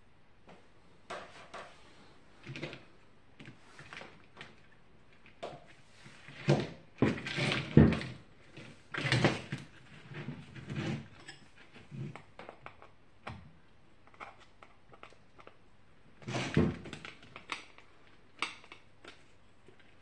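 Hard plastic parts of a box fan being handled and knocked against each other and the work surface: scattered clicks, rattles and knocks. The loudest clatter comes a few seconds before the middle, with another burst of knocks about three-quarters of the way through.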